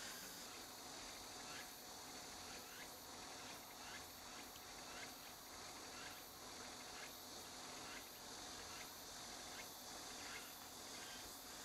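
Near silence: a faint steady hiss with a faint steady tone and weak short ticks now and then.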